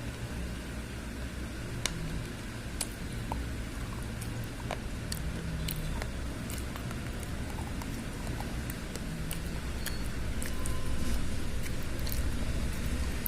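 Slate pencils being bitten and chewed, heard as scattered sharp crunches and clicks a second or more apart, over a steady low rumble.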